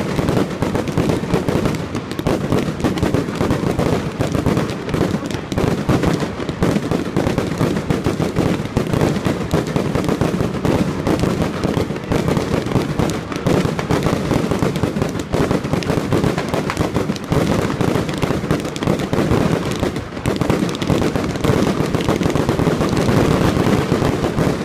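Fireworks display: a dense, unbroken barrage of aerial firework bangs, the bursts overlapping one another with no pause.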